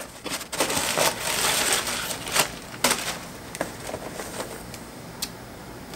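Brown packing paper crumpling and rustling as it is pulled out of a cardboard box, loudest for about two seconds near the start, followed by a few short clicks and knocks of cardboard being handled.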